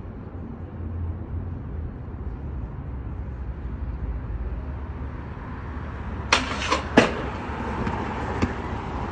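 Steady low rumble of city traffic. About six seconds in, two sharp clattering impacts come less than a second apart, the second the louder: a stunt scooter slamming onto concrete.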